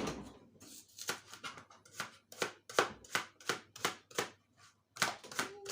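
Knife slicing an onion against a chopping board: a steady run of sharp cuts, about two to three a second, with a brief pause near the end.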